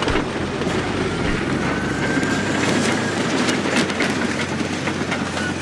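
Large mining shovel at work: a steady heavy diesel drone with scattered metallic clanks and rattles.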